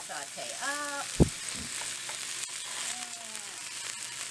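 Chicken breast and sliced onions sizzling in a nonstick frying pan while tongs move the chicken. A short squeak and then a dull thump come about a second in.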